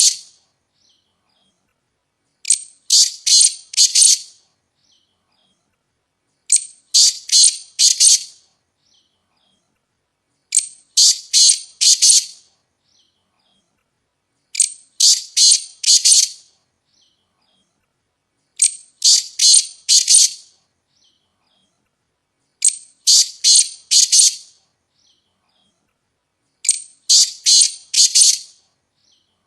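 Partridge calling: a phrase of three or four rapid, harsh notes, repeated at an even pace about every four seconds with silence between.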